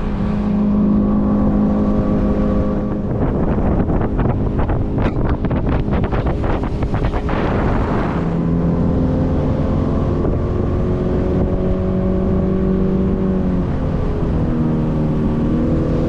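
A small boat's motor running at speed, its pitch shifting as the throttle changes twice, with wind on the microphone. There is a stretch of rapid thuds in the middle.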